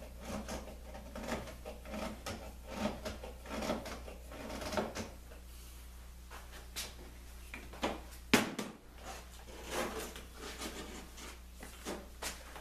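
Wooden blocks and a thin baltic birch plywood strip being handled and bent around a round plywood form: a run of light wooden knocks and rubbing, with one sharp, louder knock about eight seconds in.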